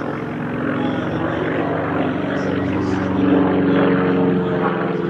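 Radial piston engines of WWII navy fighters droning in flight during a display pass. The engine note shifts slightly and grows louder about three seconds in as the aircraft comes closer.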